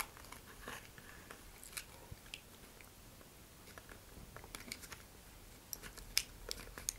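Faint clicks and light rustling of a paper rocket body tube being handled and pressed into place against a model rocket's fin, a scatter of small taps that comes thicker in the second half.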